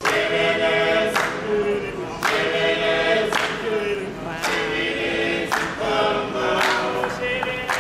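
Background music: a choir singing held chords in phrases about a second long, with a short sharp accent at each change.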